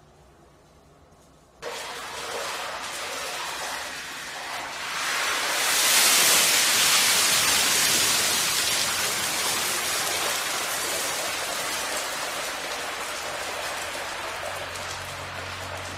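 Cooking-oil fire: a sudden rush of flame about two seconds in, swelling to a loud fireball a few seconds later, then a steady rushing noise of burning oil that slowly dies down.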